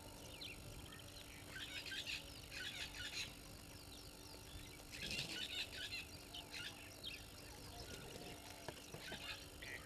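Wild birds calling in short bursts of chirps and twitters, several times over, above a faint steady hum.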